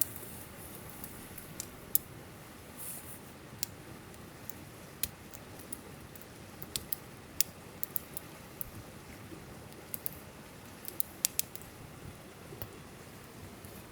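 Campfire crackling: scattered, irregular sharp pops and snaps over a soft steady background hiss.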